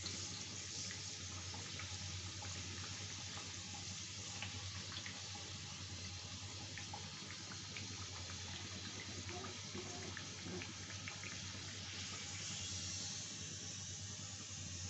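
Sattu-stuffed litti deep-frying in hot oil in a kadhai: a steady sizzle with small scattered crackles.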